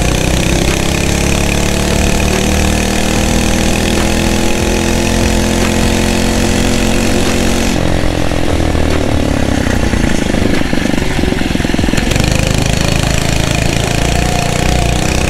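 Phatmoto Rover's 79cc four-stroke engine running under load on a motorized bicycle, its pitch climbing steadily for about eight seconds as the bike picks up speed. After that the even engine tone breaks up into a rougher, choppier sound.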